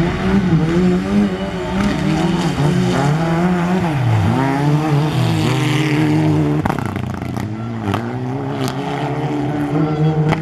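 Mitsubishi Lancer Evolution rally car's turbocharged four-cylinder engine at high revs, its pitch repeatedly dropping and climbing again with gear changes and throttle lifts. Two sharp cracks come in the second half.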